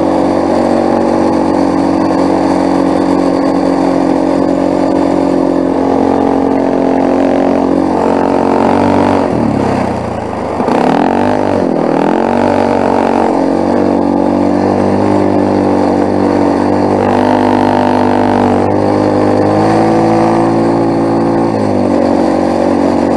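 Quad bike (ATV) engine running steadily under throttle while towing sleds on a rope through snow. About ten seconds in, the revs drop briefly and then climb back up.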